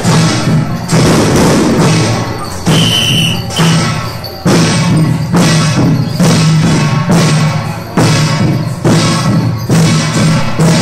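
Percussion music of a Taiwanese flower-drum (huagu) troupe: a deep drum struck in a steady beat a little under once a second, each stroke with a bright ringing wash over it.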